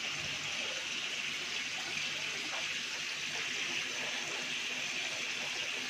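Steady splashing of water running from the recirculating system's pipe outlets into the fish tanks.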